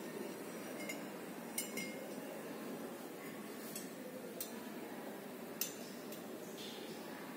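Light clinks and clicks of glassware being handled, about six scattered over several seconds, over a steady low background hum.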